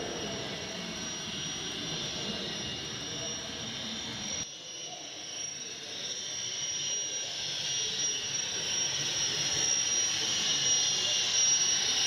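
HO scale model train running past on the layout track: a steady high whine over a hiss. It grows louder toward the end as the locomotive comes close. The sound drops and changes abruptly about four and a half seconds in.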